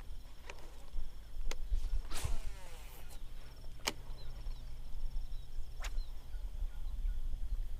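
A cast with a Shimano SLX baitcasting reel: about two seconds in, the spool whirs briefly and falls in pitch as line pays out. Several sharp clicks come before and after it, over a low wind rumble.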